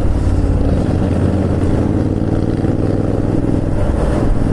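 Royal Enfield Continental GT 650's parallel-twin engine running at a steady throttle through an aftermarket SS Moto slip-on exhaust.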